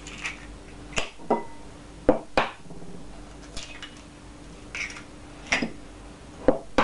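Eggs being cracked into a mixing bowl: a series of short, sharp taps and cracks, irregularly spaced, as eggshells are knocked against the bowl and broken open. A faint steady hum sits underneath.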